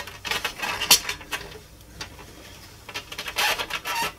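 Plastic parts and wiring being handled inside a turntable's opened plastic chassis as a circuit board and the drive motor are worked loose: scraping and sharp clicks in two bunches, one in the first second or so and another near the end.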